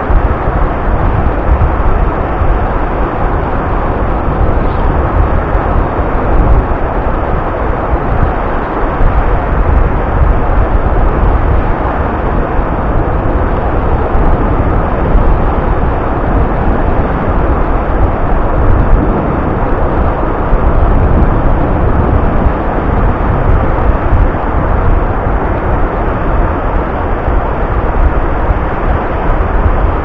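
Black Sea surf, still rough after a storm, breaking and washing over the sand at the water's edge: a steady, loud rush with a deep rumble underneath.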